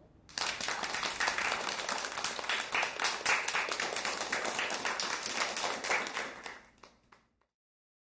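Audience applauding, a dense patter of many hand claps that fades out near the end.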